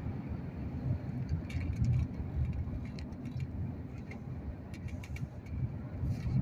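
Steady low road rumble inside a moving car, tyres and engine at driving speed, with a few faint light clicks or rattles.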